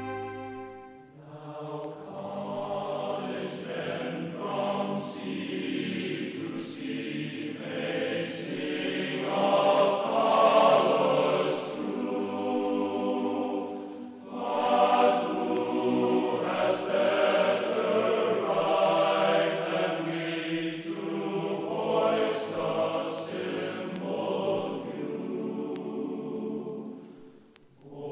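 Background music: a choir singing, which comes in about a second in and fades near the end.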